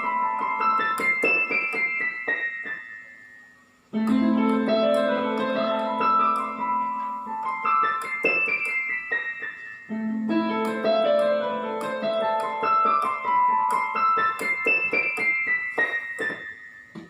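Roland XPS-10 keyboard playing a fast melody of quick rising and falling note runs in a piano voice. It comes in phrases of about six seconds: one fades out, and fresh ones start about four and ten seconds in, each over a held low note.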